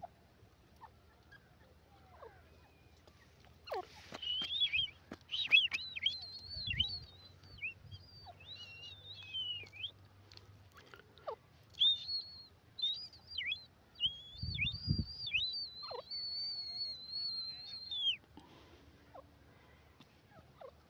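Grey francolin calling: bouts of high, squeaky whistled notes, many sliding sharply down, ending in one long drawn-out whistle. A couple of low thumps are heard among the calls.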